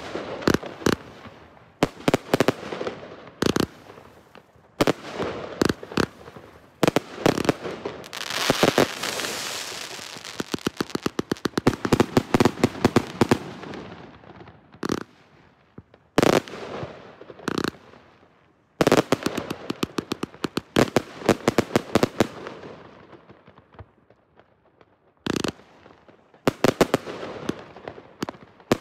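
Surex SFC193 '5 in 1' 193-shot combination firework battery firing. Tubes launch one after another and shells burst in the air, at times as single bangs a second or more apart and at times in fast volleys of many small pops with a hissing spray behind them. There are short lulls about halfway through and again near the end.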